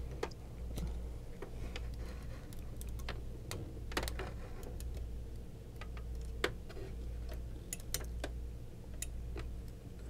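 Scattered small plastic clicks and ticks from handling the correction tape and twisting its take-up spindle on the carriage of a Brother AX-22 electronic typewriter, irregularly spaced, over a low steady hum.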